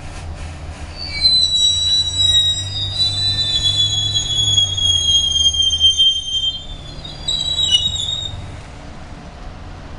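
GO Transit train's steel wheels squealing on the rails: several high tones at once, drifting slowly lower, over a low rumble. The squeal starts about a second in and dies away near the end.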